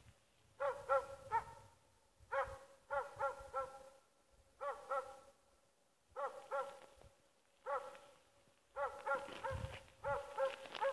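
Jämthund (Swedish elkhound) bay barking: short runs of two to four barks, a new run every second or so, kept up steadily. This is the stand bark (ståndskall) that a moose dog gives while holding game at bay.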